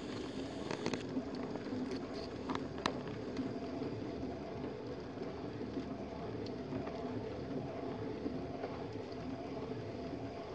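Electric potter's wheel running with a steady hum while a small metal tool scrapes at an upturned clay bowl turning on it, with a few short scratchy clicks in the first three seconds.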